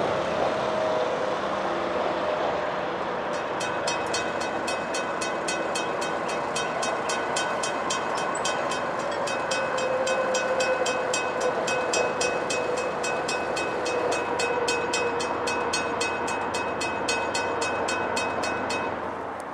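Freight train led by an EMD GP38-2 diesel locomotive running past with a steady rumble of engines and rail noise. From about three seconds in, a bell dings rapidly and evenly, stopping just before the end.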